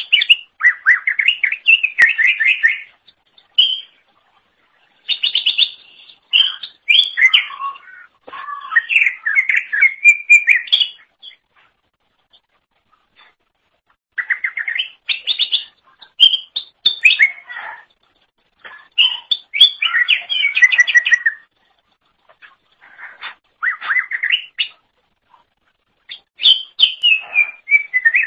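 Cucak ijo (green leafbird) singing loudly in bursts of rapid, varied chattering and whistled phrases, each lasting a second or three, with short pauses between them.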